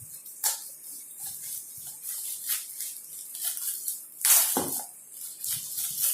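Gift packaging rustled and crinkled by hand as it is opened, in irregular bursts with the loudest crinkle about four seconds in.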